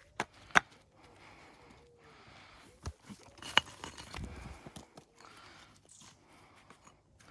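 A few sharp, separate clacks of building stone knocking against stone as stones are handled, the loudest about half a second in.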